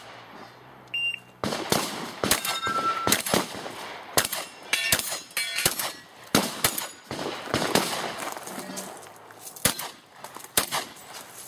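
A short electronic shot-timer beep about a second in, then a rapid string of about a dozen shotgun shots fired over the next ten seconds. Some shots are followed by brief metallic ringing, typical of steel targets being hit.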